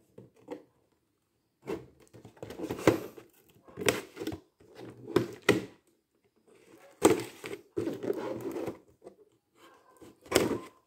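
Scissor blade scraping and slicing along the top edge of a cardboard box to cut it open, in about six short scratchy bursts with small clicks.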